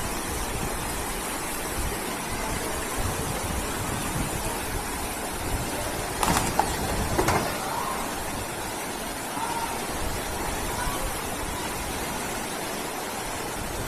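Floodwater rushing through a street: a steady rush of moving water. About six to seven seconds in there is a short, louder burst of other sounds.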